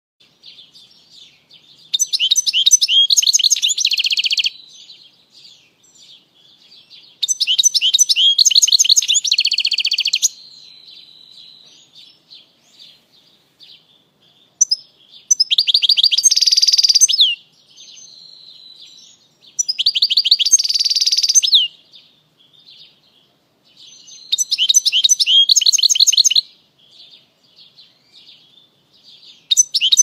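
European goldfinch singing: six loud twittering phrases of two to three seconds, each ending in a fast buzzy trill, with soft twittering in the gaps between them.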